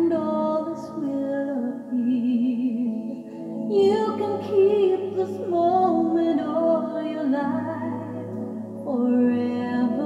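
A slow song with a woman singing long held notes with vibrato over soft accompaniment.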